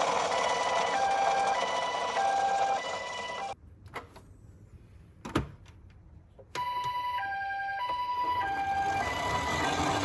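Japanese-style two-tone ambulance siren, a higher and a lower tone alternating about every 0.6 s over a hiss. It cuts off about three and a half seconds in, leaving near silence broken by a single click, then starts again about six and a half seconds in.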